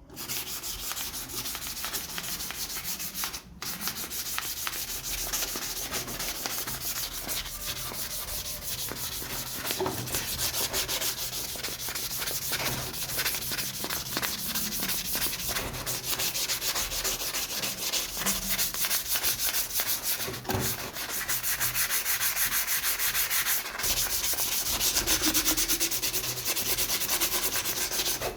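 Continuous abrasive sanding on the metal of an old oil lamp: a steady, rasping hiss made of rapid fine strokes, growing a little louder in the second half.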